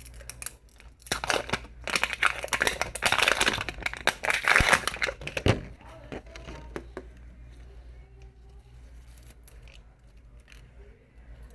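Plastic wrapping of a Mini Brands capsule ball being peeled off and crinkled by hand: dense crackling and tearing starting about a second in and lasting about four seconds, then fainter rustling and clicks.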